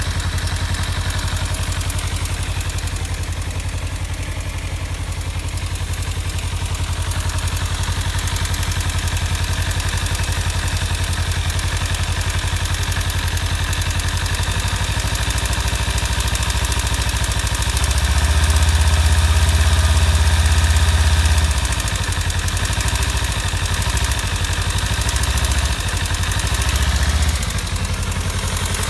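2015 Kawasaki Ninja 300's parallel-twin engine idling with a light ticking rattle over the engine note, louder for a few seconds about two-thirds through. The owner suspects a malfunctioning cam chain tensioner or loose exhaust header bolts.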